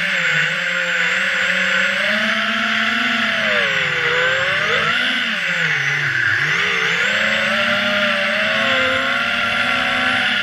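FPV quadcopter's brushless motors and propellers whining in flight, the pitch rising and falling with the throttle and dipping sharply about six seconds in.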